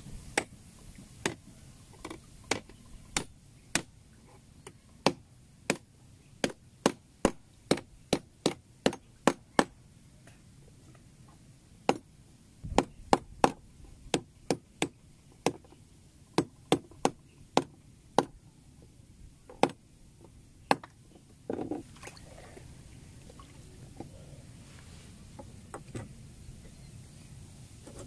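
Machete blade chopping against a wooden plank: dozens of sharp knocks in quick runs with short pauses, stopping a little over twenty seconds in.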